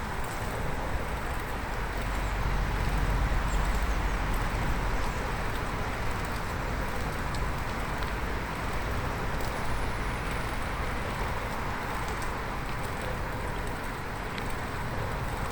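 Steady rolling noise of a bicycle ride on the road, with tyre and wind noise and a heavier low rumble about two to five seconds in.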